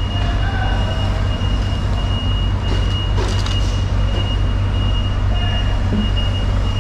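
Steady low machine hum with a constant thin high-pitched whine over it. A brief sharper sound cuts in about three seconds in.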